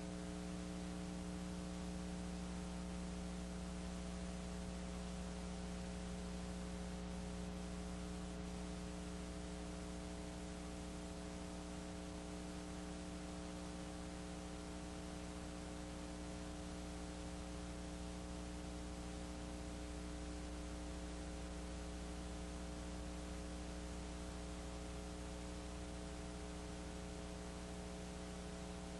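Steady electrical mains hum with a layer of hiss, unchanging throughout, with no sound of the game heard under it.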